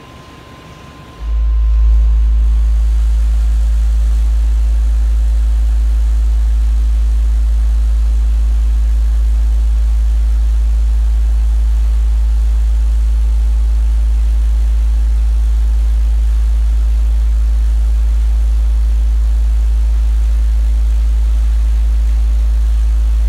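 Truck's car-audio subwoofers playing a steady, very loud 54 Hz test tone (a "burp") at about 142 to 143 dB, driven by roughly 105 watts of amplifier power. It starts about a second in and cuts off sharply at the end.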